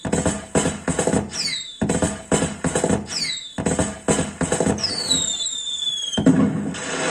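Electronic music with a steady beat and repeated falling whistle sweeps, two longer sweeps near the end. About six seconds in it gives way to a denser, noisy hissing sound.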